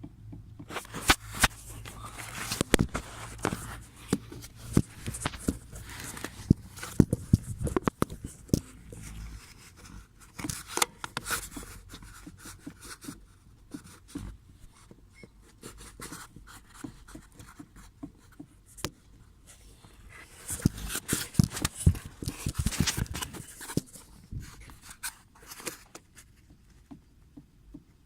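Toyota Avensis T27 steering intermediate shaft knocking: irregular sharp clicks and knocks, in two busy spells, as the steering is worked.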